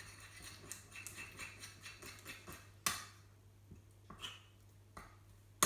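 A spoon stirring a sticky mixture of PVA glue and liquid detergent in a small bowl as it thickens into slime: faint scraping and ticking, with a few sharper clinks of the spoon against the bowl about three seconds in and a louder one at the end.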